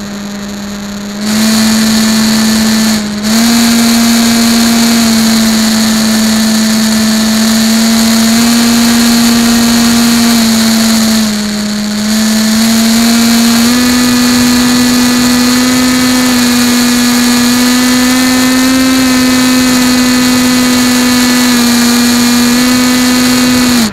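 FPV aircraft's motor and propeller heard through its onboard camera, a loud steady buzzing drone whose pitch steps slightly up and down with throttle. It rises in level about a second in, dips briefly twice, and cuts off suddenly at the end.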